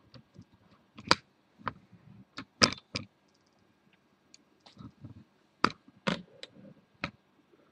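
Handling noise from a crochet hook and yarn work being turned in the hands: about ten sharp, irregular clicks and taps, in two clusters, the first near the start and the second in the latter half.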